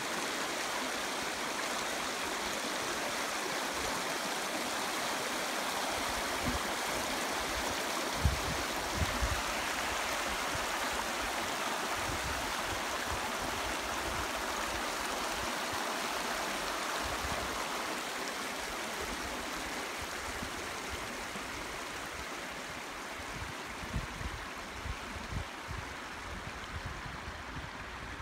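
Shallow mountain stream rushing over a stony bed: a steady rush of water that eases a little past the middle. A few brief low bumps sound now and then.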